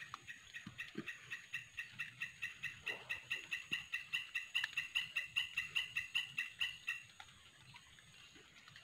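An animal calling in a rapid, even series of short pulsed notes, about five a second. The call grows louder and stops abruptly about seven seconds in.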